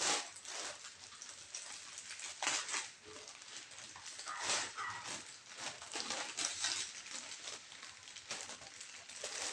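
Plastic courier pouch rustling and crinkling in irregular bursts as hands tear it open and pull at the contents.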